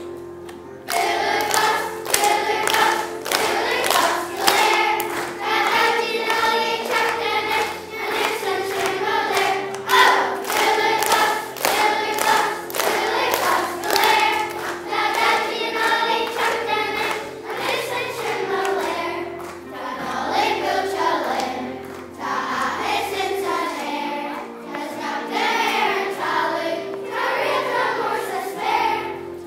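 Children's choir singing a festive song over instrumental accompaniment with a bass line and a steady beat, starting about a second in.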